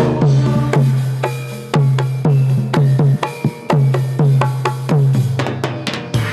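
Drum-led music: deep, pitched drum strokes in a steady rhythm, ending in a quick run of strikes near the end.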